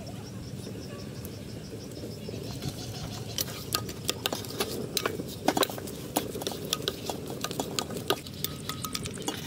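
A hand kneading spice into raw fish pieces in a metal bowl: wet squishing with sharp clicks and smacks, starting about three seconds in.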